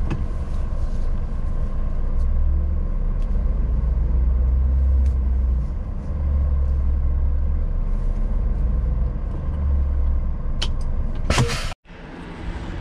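Heavy truck diesel engine, the Scania S500's, running with a deep rumble heard inside the cab, swelling and easing in slow waves. Near the end comes a short loud rush of noise, then the sound cuts off abruptly.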